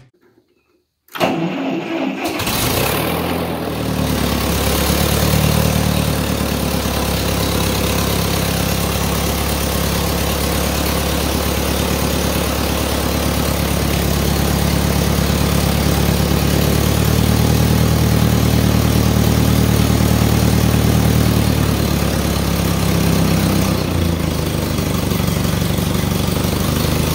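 1955 Massey Ferguson TO-35's four-cylinder gasoline engine cranking briefly about a second in, catching, and then idling steadily.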